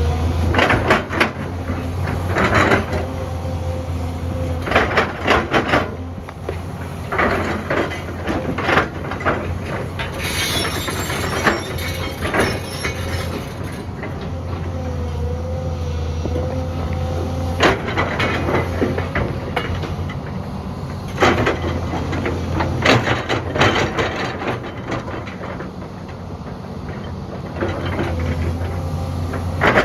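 Excavator's diesel engine running steadily with a higher tone wavering above it, while the bucket clanks and knocks against stones again and again.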